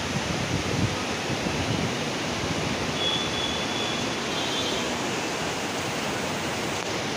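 Heavy monsoon rain falling: a steady, even hiss with no breaks.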